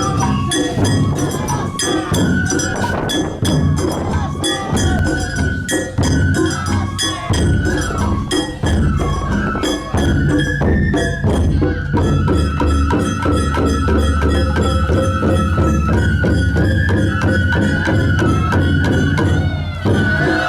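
Japanese festival music for a mikoshi procession: quick, evenly repeating percussion strikes with a high melody line held over them.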